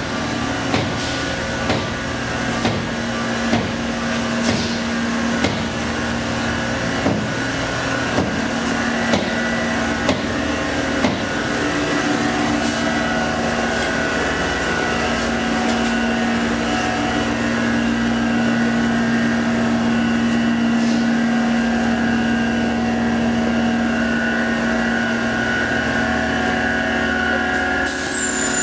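Amada FMS sheet-metal punching cell running: a steady machine hum with a thin high whine. Sharp knocks come about once a second over the first eleven seconds, then the hum carries on alone, a little louder. Just before the end a new high tone drops in pitch.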